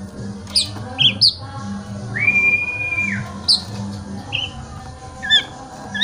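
Oriental magpie-robin calling: short, sharp, downward-sliding notes in ones and twos with gaps between, and one long level whistle held for about a second, two seconds in.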